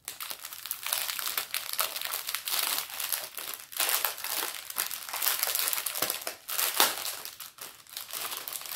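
Small plastic bags from a diamond painting kit crinkling and crackling continuously as they are handled and opened.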